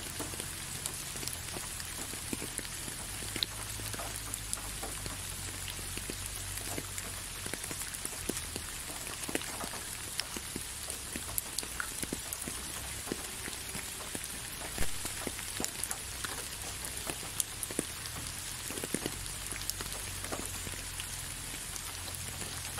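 Steady rain: an even hiss with frequent separate drops tapping close by, and one louder tap about fifteen seconds in.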